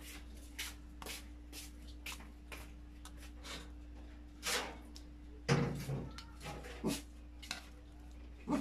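Metal spoon scraping and tapping against a bowl and a foil tray as a creamy topping is scooped and spread: a run of short scrapes and clicks, with a few louder knocks around the middle and near the end. A steady low hum runs underneath.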